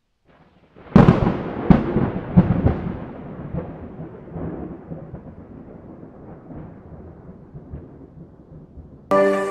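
Thunder: a sharp crack about a second in, two more peals close behind it, then a long rolling rumble that slowly dies away.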